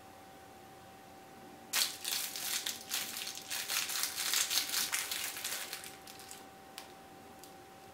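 Clear plastic bag crinkling as a small squishy toy is unwrapped from it, starting about two seconds in and going on for about four and a half seconds, with a couple of short ticks after it stops.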